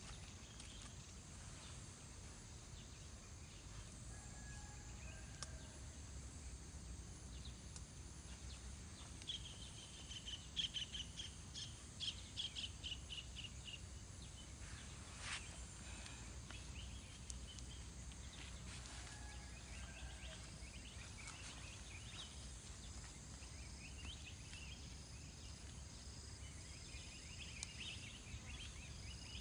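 Quiet outdoor ambience: a steady high insect drone with birds calling now and then, including a quick run of chirps about ten seconds in, over a faint low rumble.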